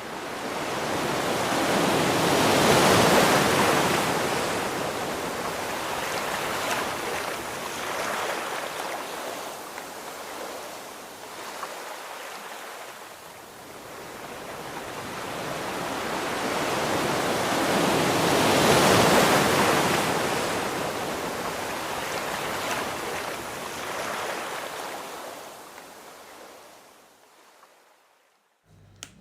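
Sea waves washing onto a beach: a rushing hiss that swells and ebbs twice, peaking a few seconds in and again just past the middle, then fading out near the end.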